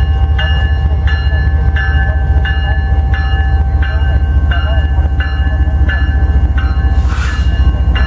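Ferromex diesel locomotive with its engine running loud and its bell ringing steadily, about one and a half strokes a second. A short hiss of air comes near the end.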